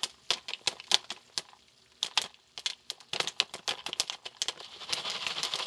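Jiffy Pop popcorn kernels popping inside the swelling foil dome of the stovetop pan: scattered sharp pops at first, coming faster from about three seconds in, with a hiss building near the end.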